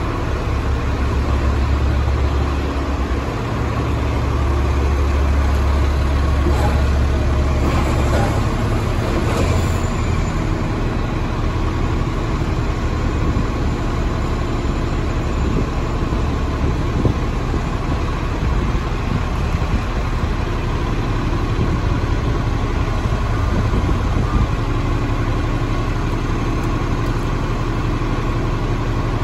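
2007 Orion VII diesel city bus idling at the curb: a steady, deep engine hum that is heaviest for the first ten seconds or so, with other buses idling around it.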